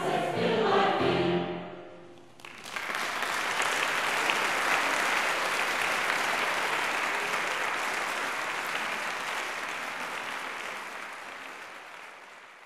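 A mixed choir sings its last notes, which die away in about the first two seconds. Audience applause then breaks out and runs on, slowly fading near the end: the close of the song.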